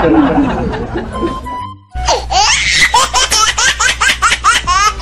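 Laughter on a comedy music track. A burst of laughing fades out, and about two seconds in a high-pitched laugh starts: a quick run of rising "ha-ha" sounds, about three a second, over a steady bass.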